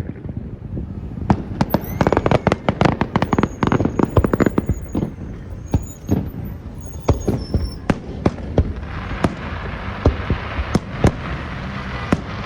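Fireworks display going off in quick volleys of sharp bangs and pops, densest in the first few seconds and thinning to scattered single bangs in the second half.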